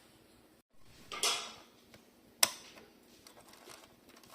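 Handling noises from reassembling a TV's internals: a brief scraping rustle about a second in, then one sharp click, with a few faint ticks after.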